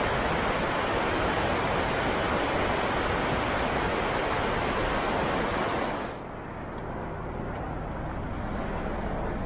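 Shallow river running over rocky rapids, a steady rushing of water. About six seconds in it cuts off suddenly, leaving a quieter low background rumble.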